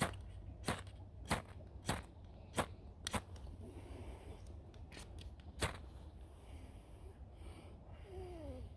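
A fire-starting striker scraped in quick strokes, about one every half second or so, then a pause and a few more strikes, throwing sparks onto dried King Alfred's cake fungus to see if it will catch an ember.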